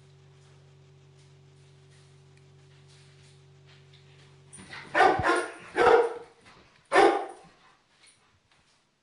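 Large dog barking three times, about a second apart, while chasing a laser pointer dot.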